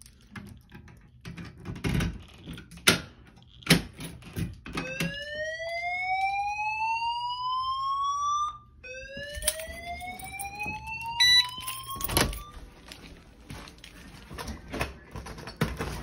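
Voice-evacuation fire alarm speaker sounding its whoop evacuation tone: two slow rising whoops, each about four seconds long, starting about five seconds in and stopping about three-quarters of the way through. Knocks and clicks from handling come before and after.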